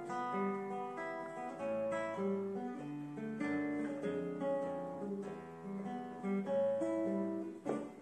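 Acoustic guitar playing an instrumental passage between sung verses, picked single notes and chords in a flowing melodic line.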